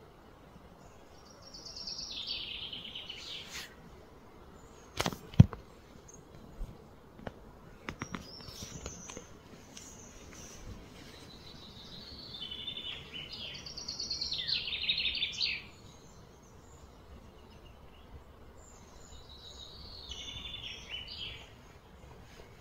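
High, rapidly pulsing trilled calls of outdoor wildlife come in three bouts. A sharp knock about five seconds in is the loudest sound, with a few lighter clicks after it.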